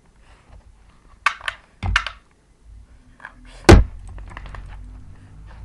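A few sharp clacks and knocks from a person and a dog scuffling in a play fight, then one heavy thump a little before four seconds in, followed by a low rumble.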